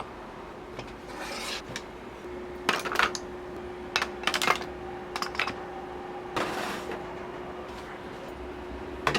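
A steel blade being stroked across a leather strop charged with honing compound: a few slow swishing strokes among light metallic clicks and knocks as the tool is handled.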